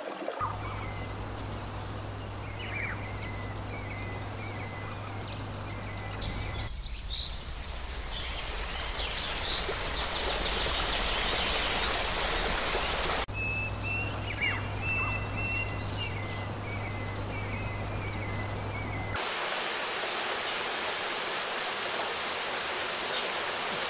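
Steady rush of a forest stream with small birds chirping in short calls. The water grows louder for several seconds in the middle, the birds drop out there and again near the end, and the sound changes abruptly three times.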